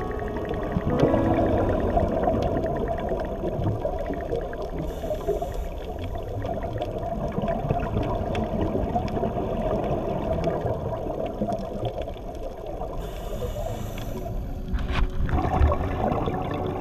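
Underwater sound picked up by a camera on a coral reef: a steady low wash of water noise with constant faint crackling clicks, swelling briefly near the end.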